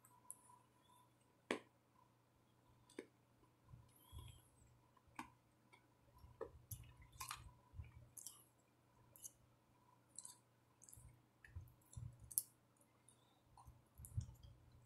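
Faint chewing of gingerbread close to the microphone: irregular small crunches and mouth clicks with soft low thuds.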